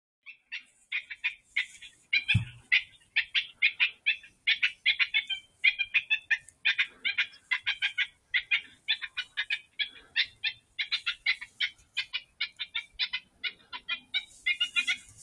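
Electronic predator caller playing coyote pup distress sounds: a rapid, unbroken string of high-pitched yips and squeals, three or four a second. A single low thump about two seconds in.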